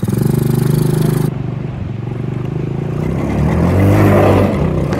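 Small gasoline engine of a mini Jeep running under load as it drives over rough dirt and wood chips. It grows louder and works harder about three seconds in.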